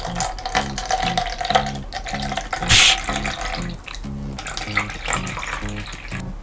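Liquid poured into clear plastic cups, first from a small glass bottle and then from a plastic bottle of green tea, trickling and splashing in two pours, with a brief louder burst about three seconds in. Background music with a steady beat plays underneath.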